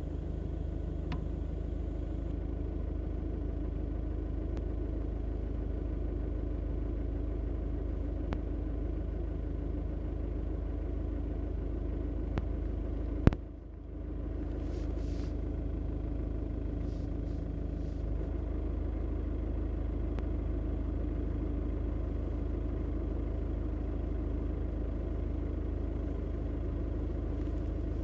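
Car engine idling steadily with a low rumble, the noise that the owner suspects may mean the dual-mass flywheel is on its way out. A single sharp click about 13 seconds in, after which the sound briefly drops and then returns.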